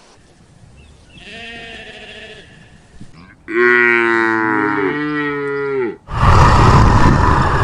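A cow mooing: one long call of about two and a half seconds, following a fainter, shorter animal call. Near the end the moo gives way abruptly to a loud, rough noise.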